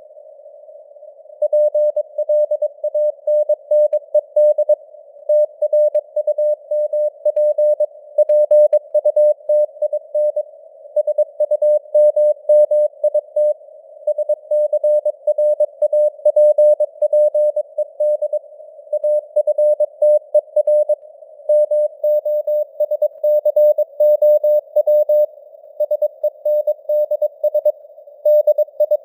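Morse code (CW) sent at 22 words per minute: a single mid-pitched tone keyed on and off in dots and dashes with short gaps between characters and words. It sits in a narrow band of simulated radio hiss, and its strength fades up and down slightly like a signal with QSB.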